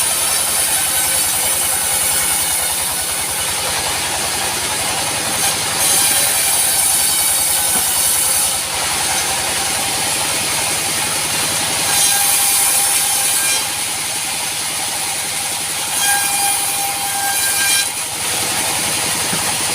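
Band sawmill running, its blade cutting through a teak log: a steady machine noise that grows harsher and brighter in several stretches, with a faint whine while the blade is under load.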